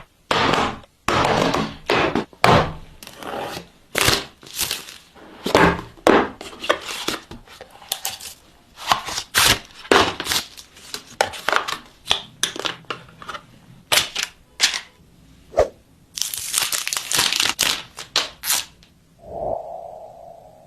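Smartphone retail box and its packaging being unboxed: plastic wrap crinkling and tearing, cardboard parts sliding and thunking, with a quick run of sharp clicks and crackles late on. Near the end a short humming tone sounds for about a second.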